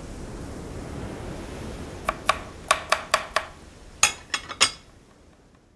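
Intro sound effect under the title card: a steady rushing hiss that fades away, with a quick run of bright, ringing clinks, about nine strikes, starting about two seconds in.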